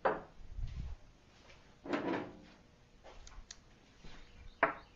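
A few separate knocks and clunks of a small engine part being handled and set down: a thump at the start, a clunk with a short ring about two seconds in, a couple of light clicks, then a sharp knock near the end.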